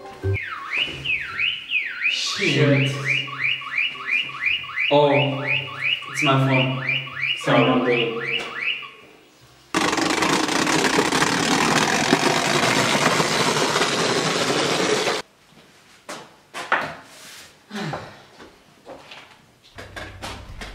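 Electronic alarm siren whooping in fast rising sweeps, about three a second, for roughly nine seconds. Then comes a steady rushing hiss lasting about five seconds, and after that a few scattered clicks.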